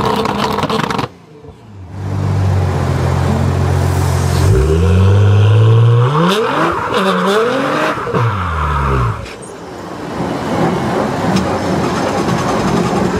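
Nissan GT-R's twin-turbo V6 being revved while parked, the exhaust note held steady, then swept up and down in repeated blips. The sound drops away sharply for about a second near the start, and a rougher, noisy rush takes over in the last few seconds.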